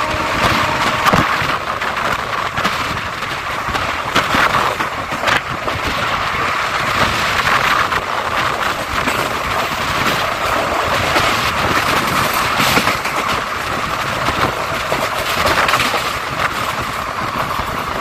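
Express train coaches running at speed, heard from the open coach door: a steady rush of wind and wheel-on-rail noise with irregular clacks from the wheels over the track.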